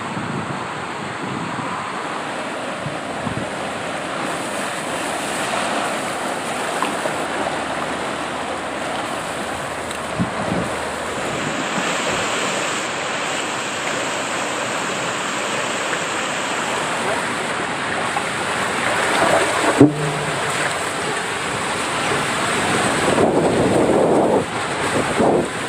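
Rushing, splashing water and wind noise on the camera's microphone as a tube rides down a funnel water slide, growing louder toward the end, with one sharp knock about twenty seconds in.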